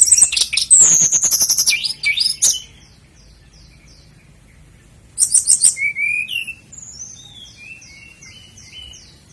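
Sikatan londo songbird singing: a loud burst of rapid high trills and chattering notes, then a softer run of repeated down-slurred whistles, another loud burst about five seconds in, and finally a steady series of repeated down-slurred whistled notes.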